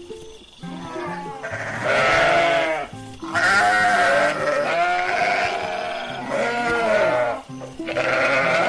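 Sheep bleating repeatedly, several wavering cries in a row, over steady background music.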